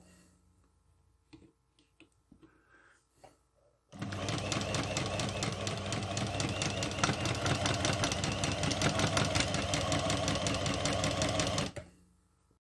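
Opened-up household sewing machine with its reverse button engaged, so the feed dog runs backwards. It starts about four seconds in and runs at speed with a fast, even mechanical rhythm, then stops shortly before the end. Before it starts there are only a few faint clicks.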